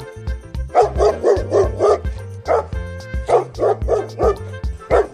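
A dog barking over and over in quick runs of several barks, with background music underneath.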